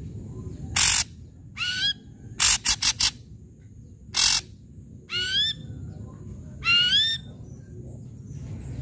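Ashy drongo calling in bursts: harsh, scratchy notes mixed with rising, upslurred whistles, about six calls in all, including a quick run of four short notes near the middle.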